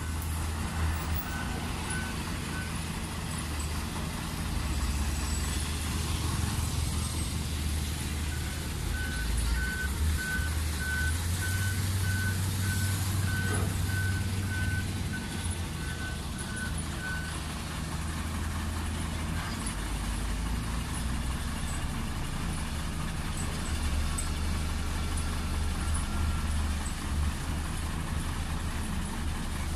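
Diesel dump truck engines running steadily, with a reversing alarm beeping about twice a second for several seconds mid-way and briefly near the start.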